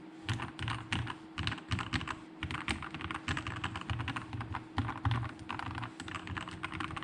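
Typing on a Keydous NJ80 mechanical keyboard with a brass plate and lubed, filmed Gateron Pro Milky Yellow linear switches: quick runs of keystrokes with short pauses between bursts.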